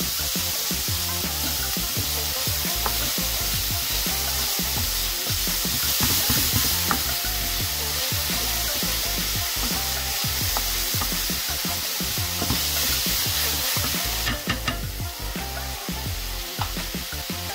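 Diced onions sizzling in oil in a nonstick skillet, stirred and scraped about with a wooden spatula in quick repeated strokes. Near the end the stirring stops and the sizzle goes on more softly.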